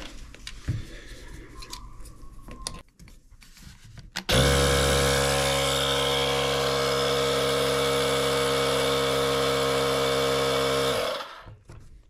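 A cordless tire inflator's compressor starts about four seconds in and runs steadily for about seven seconds, then stops. It is pumping air into a hand truck's tubeless tire, bringing it to about 7 PSI so the bead seats on the wheel. Light handling noises come before it.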